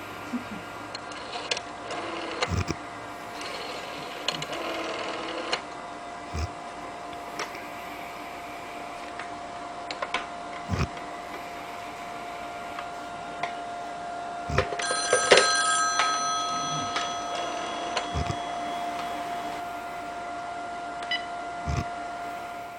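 Snoring that sounds like a rotary phone bell ringing, coming about every four seconds with each breath, over a steady hum. One louder burst comes about two-thirds of the way through.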